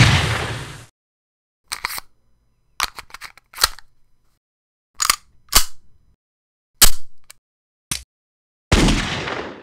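Sound-effect gunshots, each sharp and fading out over about a second, one at the start and another near the end. Between them comes a string of short, sharp clicks and clacks.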